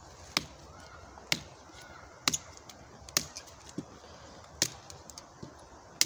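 Kizlyar Supreme Shark knife, a large PGK-steel blade, chopping into a thin wooden branch: sharp, separate chops about once a second, with fainter ticks between.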